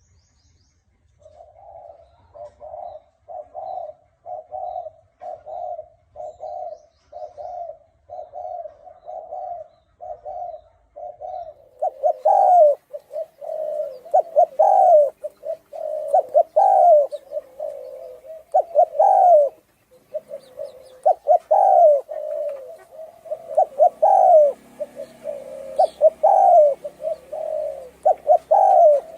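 Spotted dove cooing. It starts with a quick run of short, soft coos, about two a second. From about twelve seconds in come louder calls, each with a rising note, roughly every two seconds, mixed in with the coos.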